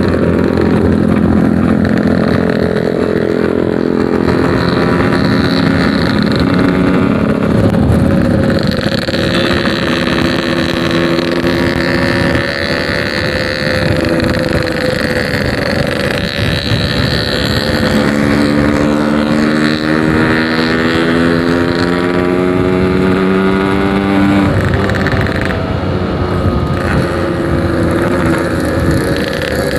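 Yamaha RX-King 135cc two-stroke motorcycle with a 'packing power' expansion-chamber exhaust, ridden under way. Its engine pitch climbs repeatedly as it accelerates through the gears, dropping back between pulls.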